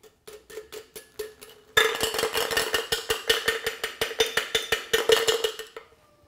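Stainless steel shaker tin and fine-mesh strainer knocked together to drive thick egg-white foam through the mesh: light taps at first, then from about two seconds in a fast run of ringing metallic taps, about six a second, stopping shortly before the end.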